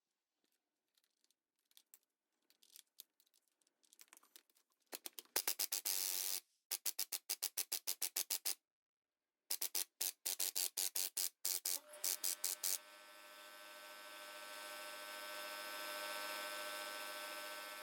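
Impact wrench hammering in rapid bursts on an Allen-wrench bit set in a Milwaukee Super Hawg's stuck Jacobs chuck, trying to break it loose. From about twelve seconds in, a steady motor hum that slowly grows louder.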